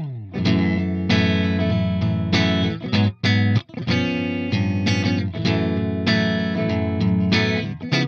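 Soloking MT-1 Classic electric guitar with humbucking pickups played on a clean tone, strummed chords ringing out. There is a brief break in the playing a little after three seconds in and another just before the end.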